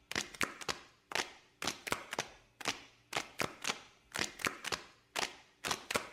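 Crackling fire: irregular sharp pops, about three a second, each dying away quickly.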